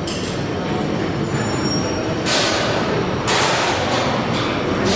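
Compressed air hissing from a KiHa 185 diesel railcar's air system in two bursts of about a second each, starting about two seconds in, over a steady low rumble.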